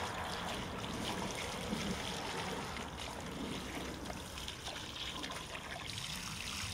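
Water from a garden hose spraying onto the cell modules of an opened, flood-damaged lithium-ion battery pack, splashing and running off in a steady stream as the pack is rinsed out.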